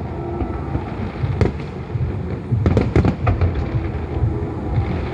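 Aerial fireworks bursting: irregular sharp cracks, most of them bunched near the middle, over a continuous low rumble of booms.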